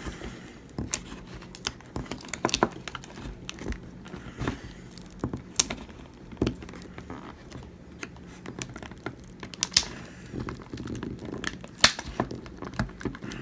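Irregular small clicks and crinkling as an iPhone 7 Plus battery is pried and peeled away from its torn adhesive strips.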